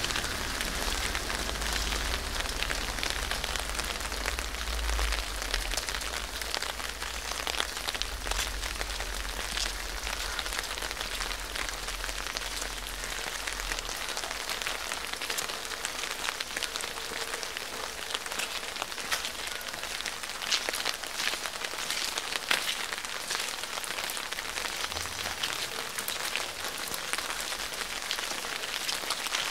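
Steady rain falling, with many close raindrops tapping. A low rumble underneath fades out about halfway through.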